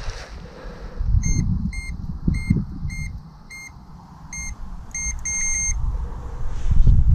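Electronic bite alarm on a pike rod beeping in short single tones, about two a second, then a quicker run of beeps around five seconds in. Wind rumbles on the microphone underneath.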